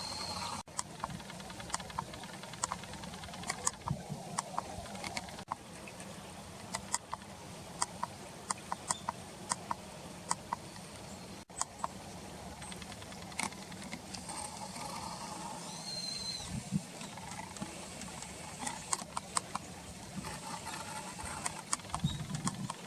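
Many light, sharp ticks and taps at irregular intervals, with one short high bird whistle about sixteen seconds in.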